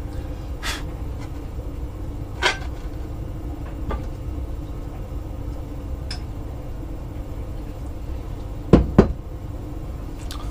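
Scattered clicks and knocks of tools and intake parts being handled while a carbon airbox plenum and its trumpets are taken apart, with two louder knocks close together near the end, over a steady low hum.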